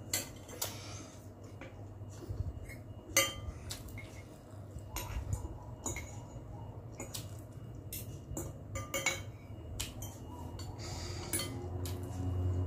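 Metal spoon and fork clinking and scraping against a glass bowl of noodles while eating, with many sharp, irregular clinks.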